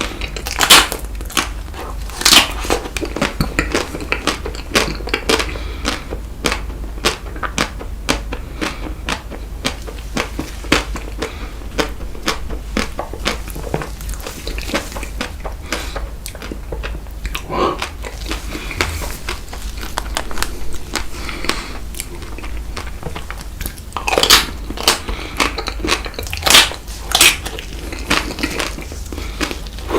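Close-up eating of chocolate ice cream bites: repeated crunching, biting and wet chewing, with bursts of crunching near the start and again about three-quarters of the way through.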